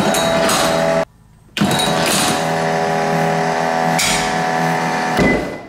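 Minn Kota Deckhand 40 electric anchor winch motor running steadily as it pays out rope and lowers the anchor, breaking off for half a second about a second in. It stops near the end as the anchor reaches the bottom, the winch's automatic stop on the way down.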